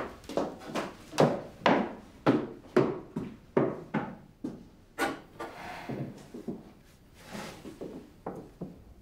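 A run of irregular knocks, about two a second, loudest in the first few seconds and softer later on, with two brief hissing sounds in the second half.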